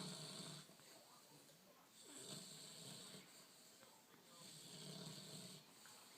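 Bulldog snoring softly, one snore about every two seconds, each a raspy breath lasting a second or so.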